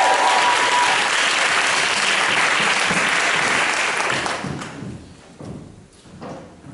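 Audience applauding, dying away after about four and a half seconds, followed by a few soft steps of high heels on the stage floor.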